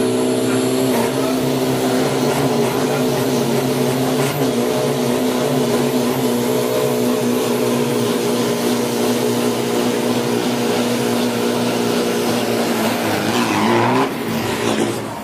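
Isuzu D-Max 3000 Turbo drag pickup's turbo diesel engine held at steady high revs during a burnout, with the rear tyres spinning in a rough hiss. About a second before the end the engine note falls away and the level dips as the truck moves off.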